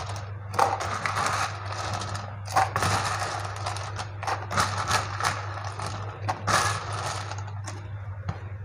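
Ice cubes clattering and rattling as a plastic scoop digs into a metal bowl of ice and tips the cubes into plastic cups, in a run of irregular crunchy clinks that stops near the end. A steady low hum runs underneath.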